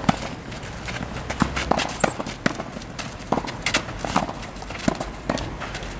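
Tennis balls being struck with rackets and bouncing on the court: a dozen or so sharp pops at irregular intervals, overlapping from more than one player.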